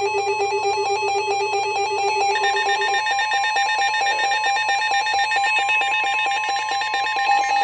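Weather alert radios sounding their warning alarms together: overlapping, rapidly pulsing electronic beeps at several pitches. A second alarm joins about two seconds in, and the lowest beeping tone stops about three seconds in.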